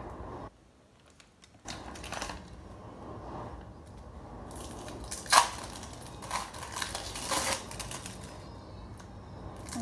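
Thin clear plastic film of an individually wrapped cheddar cheese slice crinkling and crackling as it is peeled off by hand, with scattered sharp clicks. The sharpest click comes about five seconds in.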